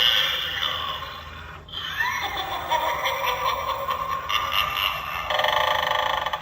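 Animated light-up eyeball Halloween doorbell playing one of its Halloween sound effects through its small built-in speaker. It starts suddenly, has a rising glide about two seconds in, and turns to a faster pulsing pattern near the end.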